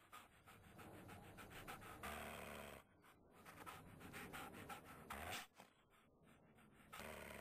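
Puppy panting in quick, faint breaths.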